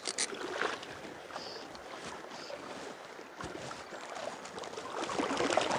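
River water flowing with a steady rushing hiss, with a few light splashes, louder towards the end.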